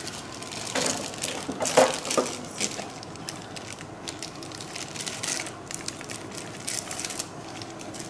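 Clear plastic wrapping crinkling and rustling in irregular crackles as hands pull it off Thermomix accessories. The loudest crackles come about one and two seconds in.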